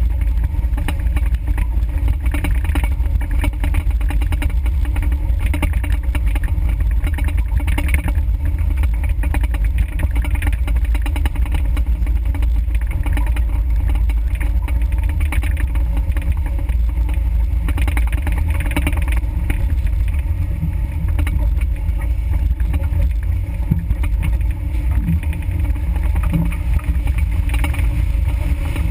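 Low, steady rumble of a Suzuki Samurai's engine and drivetrain as it crawls along a rutted dirt trail, picked up by a GoPro mounted on the vehicle.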